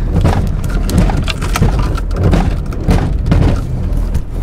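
Chevy Cavalier moving, heard from inside its cabin: a continuous rough rumble full of clicks and clunks, which the driver puts down to a worn CV shaft.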